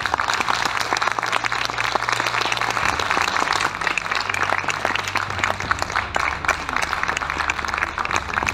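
Audience applauding, many people clapping in a dense, steady stream.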